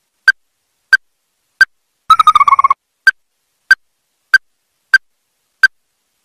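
Ruddy-breasted crake calling: a series of short, sharp, loud notes at about one and a half a second, broken by a brief rapid trill that falls slightly in pitch about two seconds in.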